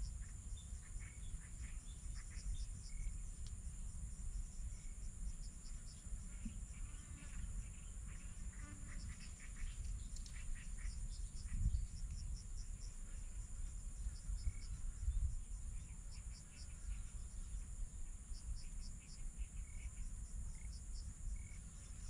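Outdoor insect chorus: a steady high hum, with short trains of rapid chirps that come and go over it, and a low rumble underneath.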